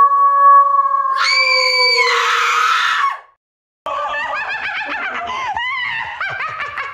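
A held, steady tone with a shrill shriek laid over it about a second in, cutting off at about three seconds; after a short silence, a woman screaming in a high, wavering pitch.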